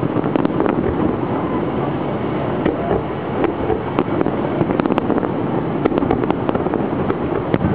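Fireworks display: a dense run of sharp pops and crackles over a steady background din, the crackling growing thicker about halfway through.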